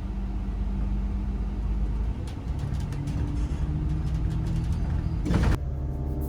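Low, steady rumble of a vehicle in motion under soft background music with held notes; the notes change about two seconds in, and a short whoosh comes about five seconds in.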